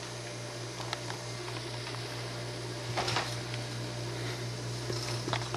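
Indoor room tone: a steady low hum with a faint hiss, broken by a few faint clicks, the clearest about three seconds in.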